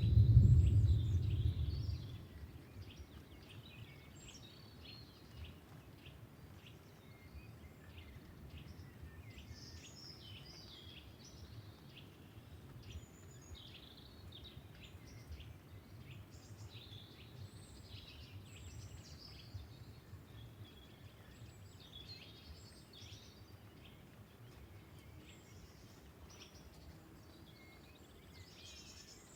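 A low rumble of thunder dies away about two seconds in. Birds then chirp and call over a quiet, steady background of light rain.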